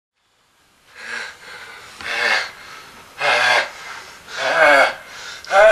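After about a second of silence, a person takes four loud, gasping, wheezy breaths, roughly one a second.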